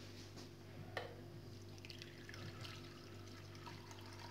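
Water poured from a bottle into a clay bowl of hand-rolled berkoukes pasta pearls to soak them, faint trickling and splashing over a steady low hum, with a single click about a second in.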